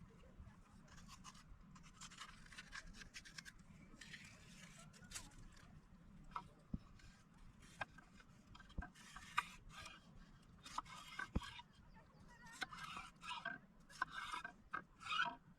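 Intermittent scraping and rubbing with scattered sharp clicks, getting busier and louder in the second half.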